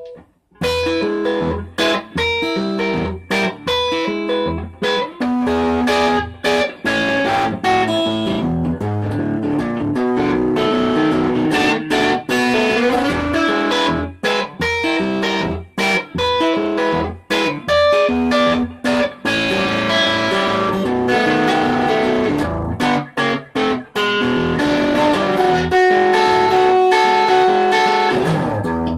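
Peavey JF-1 semi-hollow electric guitar on its neck pickup, played through a Peavey Classic 20MH tube amp with its clean channel cranked, into a 1x12 cabinet with a Vintage 30 speaker: a continuous run of picked notes and riffs with a gritty, overdriven edge.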